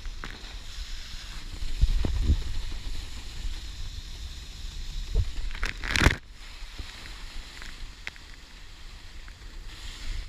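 Water rushing and spraying off a wakeboard being towed across a boat's wake, with heavy wind and water buffeting on the camera's microphone. A loud splash hits about six seconds in.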